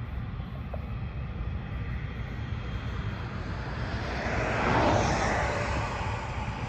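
Jet engines of a Cathay Pacific airliner climbing out after takeoff: a steady low rumble that swells into a louder rushing noise about four to five seconds in, then eases off.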